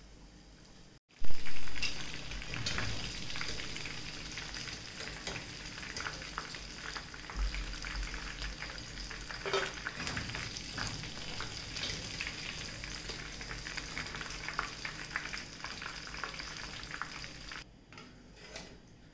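Marinated chicken pieces frying in hot oil in a non-stick pan. A loud burst of sizzling comes about a second in, then steady sizzling and spattering with clicks and scrapes of a spatula turning the pieces. It cuts off shortly before the end.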